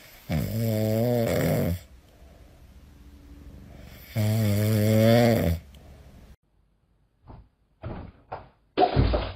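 A sleeping grey cat snoring, two long, loud snores a few seconds apart. Near the end come a few short knocks, the last one the loudest.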